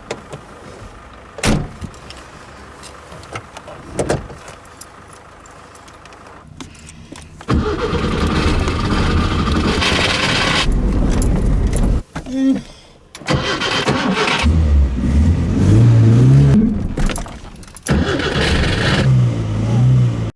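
An old Skoda 120's carburetted engine is cranked by its starter for several seconds after a couple of sharp clicks. It then catches and runs unevenly, revving up and down, cuts out briefly and picks up again. This is a hard start on an engine that keeps faltering.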